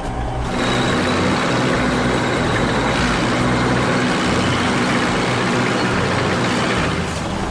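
Heavy vehicle engine running hard, a steady low hum under a loud rushing noise. It comes up about half a second in and cuts back near the end.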